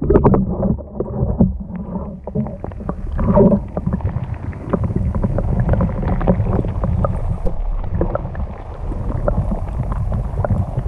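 Underwater sound through a camera held below the river's surface: a dense, muffled low rumble with bubbling and many small clicks and knocks.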